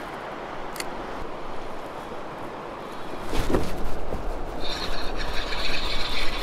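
Baitcasting reel being cranked fast for about two seconds as a hooked fish bends the rod. This follows a few seconds of steady water-and-air noise, which turns to a louder low rumble about three seconds in.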